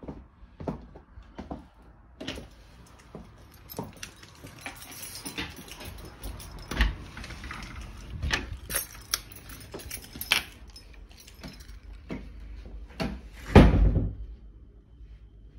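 Footsteps, rustling and irregular clicks and knocks from a phone being carried through a house, with one louder thump about two seconds before the end.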